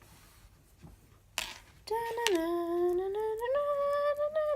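Someone humming a slow tune with long held notes that starts about two seconds in, dipping in pitch and then stepping up. A brief breathy whoosh comes just before it.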